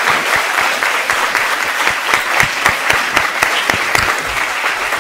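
Lecture-theatre audience applauding steadily, many hands clapping.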